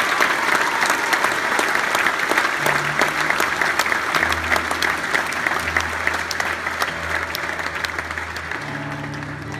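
Large audience applauding, slowly dying down. Low acoustic guitar notes sound beneath the clapping from about a quarter of the way in, and a fuller chord comes in near the end.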